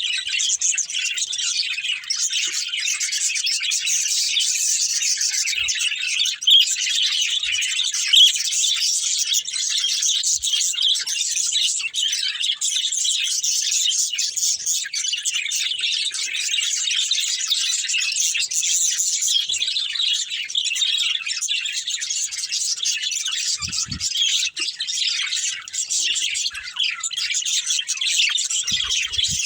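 Budgerigars chattering and chirping continuously, several birds at once in a dense, rapid stream of high chirps, with a couple of faint low knocks late on.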